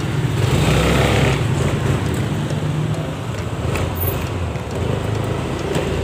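Motor vehicle engine running steadily in road noise, swelling louder for about a second near the start.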